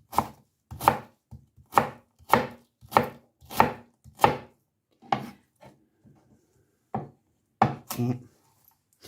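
Knife chopping cabbage into pieces: a steady chop about every two-thirds of a second, thinning to a few scattered chops after about four and a half seconds.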